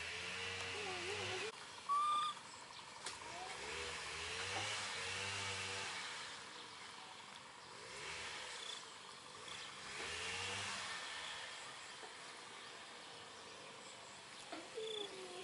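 Baby monkeys giving soft, wavering coo calls every few seconds over a steady hiss of insects. A short, sharp chirp about two seconds in is the loudest sound.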